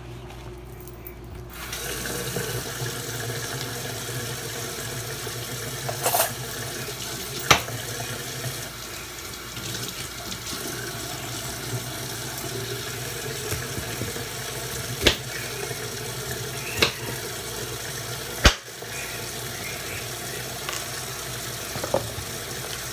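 Kitchen tap running steadily into a stainless steel sink, turned on about a second and a half in. Six or so sharp knocks stand out now and then over the running water.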